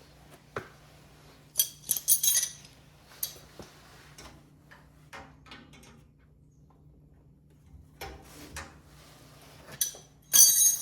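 Metal hand tools and parts clinking and clattering in short bursts, with two louder bouts of ringing metallic clinks, one about two seconds in and one near the end.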